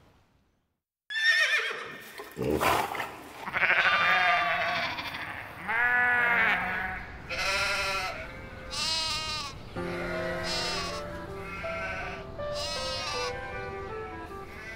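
Goats bleating: one call after another, each rising and falling in pitch, starting about a second in. Soft music with low held notes comes in under them about ten seconds in.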